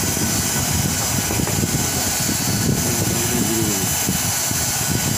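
Banner hem welding machine running with a steady whir and a thin, high whine, faint voices in the background.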